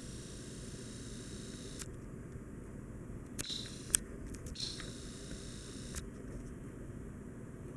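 GEV Heritage Lancaster ceiling fan running with a steady whir, with a few small clicks, the sharpest about four seconds in.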